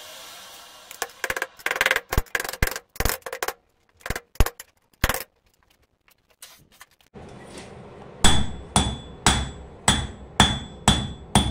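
Hand hammer striking hot steel on an anvil, about two blows a second near the end, each blow leaving a short metallic ring over a steady hiss. Earlier come a few scattered sharp knocks broken by dead gaps.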